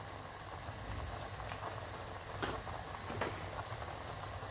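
Blended onion paste frying in oil in a wok: a steady sizzle with a few faint pops.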